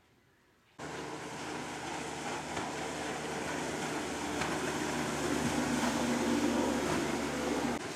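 Near silence, then from about a second in a water-taxi speedboat's outboard motor running at full speed, with water rushing along the hull, growing louder over the next several seconds.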